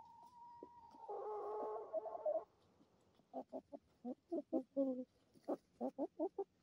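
Chickens calling as they feed: a drawn-out call in the first couple of seconds, then a quick run of short clucks, three or four a second.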